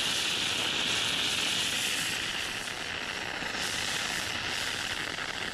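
3D-printed sugar rocket motor (potassium nitrate and powdered sugar propellant) burning with a steady, rushing hiss.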